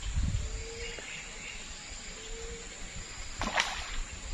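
Insects chirping steadily in the background, with a brief sharp noise about three and a half seconds in.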